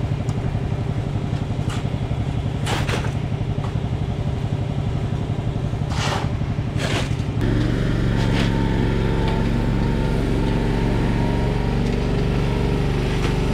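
An engine running steadily, with a few short hissing noises over it in the first half. About seven seconds in the sound changes abruptly to a steadier, deeper engine drone.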